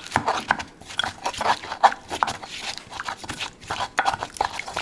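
Stone pestle grinding garlic, peppercorns and cloves with a little water in a molcajete, a volcanic-stone mortar: irregular gritty scrapes and knocks of stone on stone as the spices are worked into a fine paste.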